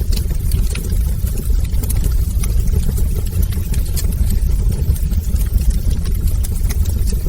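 Wood fire burning in a fireplace: a steady low rumble with scattered sharp crackles throughout.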